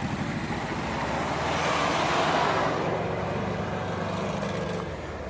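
Nissan Patrol Y61 SUV engine running under load as the vehicle drives off across grass, swelling to its loudest about two seconds in, then settling to a steadier hum.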